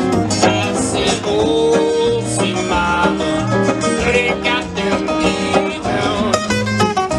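Acoustic guitar picking an instrumental break in an uptempo blues tune, busy plucked notes over a steady bass line.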